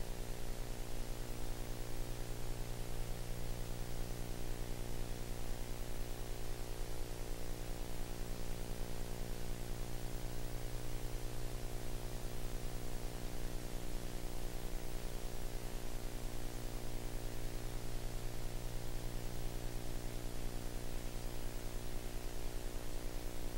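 Steady electrical hum and buzz under an even hiss, unchanging throughout, with no other sounds from the action.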